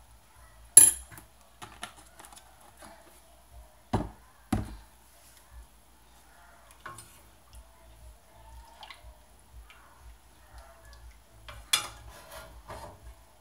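A spoon stirring in a stainless steel pot, knocking and clinking against the metal: a sharp clink about a second in, two heavier knocks around four seconds, another clink near the end, with faint scraping and small taps between.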